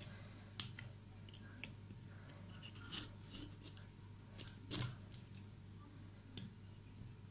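Kitchen knife cutting into the hard rind of a whole pumpkin: faint, scattered crunches and scrapes, the sharpest about three seconds in and just before five seconds.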